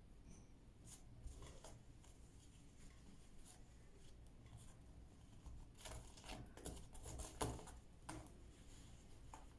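Faint rustling of silk fabric and interfacing as it is folded and pressed flat by hand on a cardboard board, with scattered soft taps and crinkles that cluster in the second half and one sharper tap near the end.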